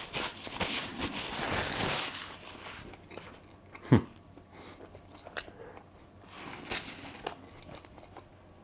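A person chewing a mouthful of bread heel dipped in egg and tomato sauce, with dense crunching for the first two seconds or so, then quieter chewing with small clicks. A single short, louder thump comes about four seconds in.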